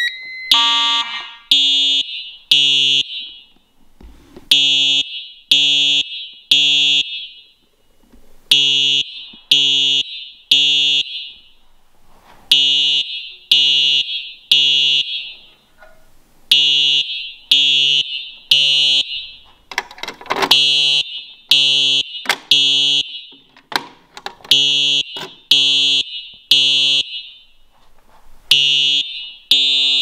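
Simplex fire alarm horn sounding the code-3 temporal pattern: three short blasts, a pause, then again, about every four seconds. This is the standard evacuation signal of a fire alarm system in full alarm.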